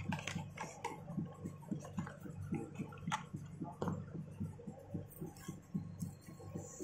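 Light clicks and rustling from a phone in its plastic sleeve and its cardboard box being handled, over a low steady hum with a quick regular pulse.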